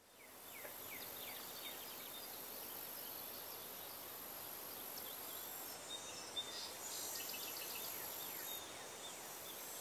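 Faint woodland ambience that fades in over the first second: many birds chirping with short, quick calls over a steady, high insect buzz.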